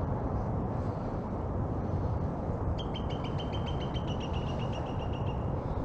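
A bird's rapid trill of quickly repeated high notes, lasting about two and a half seconds and starting about three seconds in, over a steady low background rumble.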